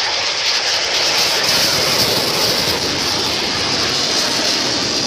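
MiG-29 fighter's twin jet engines at maximum thrust on takeoff and climb-out: a loud, steady, rushing jet noise.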